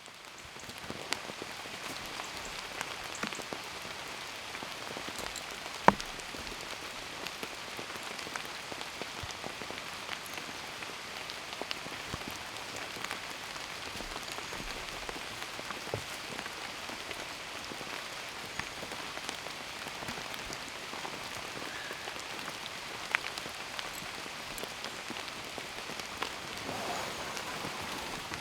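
Steady rain falling, with many individual drops tapping and dripping, and one sharper tap about six seconds in.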